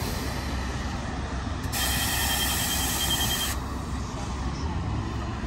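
Diesel engine of a New Flyer XD40 city bus idling at a stop. About two seconds in, its air suspension lets out a hiss of air with a thin whistle, lasting about two seconds.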